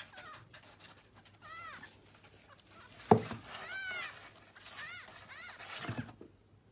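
A cat meowing several times in short calls that rise and fall in pitch. A single sharp knock comes about three seconds in.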